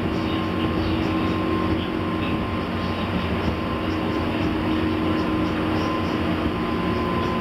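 JR 201 series armature-chopper electric train running, heard from inside the car: a steady rumble of wheels on rail with steady whining tones from the traction equipment, the 'jet sound' this class is known for.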